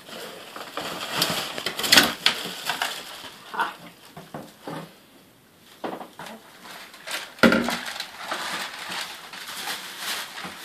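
Cardboard box and plastic packaging rustling and crackling as a vacuum part is worked out of the box, with two louder knocks, about two seconds in and again about seven and a half seconds in.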